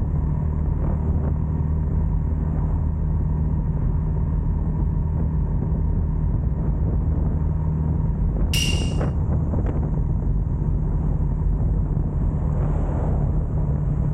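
Honda Monkey 125 motorcycle's single-cylinder engine running at a steady speed, a low steady drone. A short sharp noise cuts in about eight and a half seconds in.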